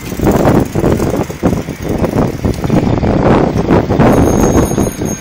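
Loud, gusty rumble of wind and road noise on the microphone of a camera carried on a moving bicycle.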